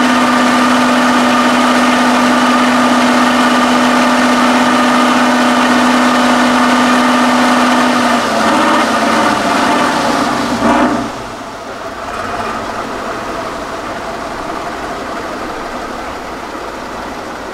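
Tatra 813 8x8 truck's diesel engine running steadily with a strong, steady whine. About eight seconds in its pitch shifts and wavers, and from about eleven seconds the engine sound is suddenly quieter and lower.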